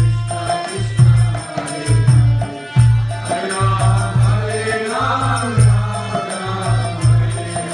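Devotional group chanting of a mantra (kirtan), with a deep drum beating about twice a second and small hand cymbals ticking along in time.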